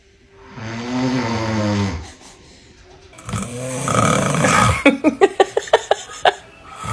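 A man snoring loudly: two long snores a couple of seconds apart. The second breaks into a quick series of about eight clicks, some five a second.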